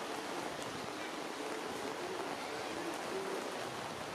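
Steady rain falling on tree foliage, an even hiss with no distinct drops or events.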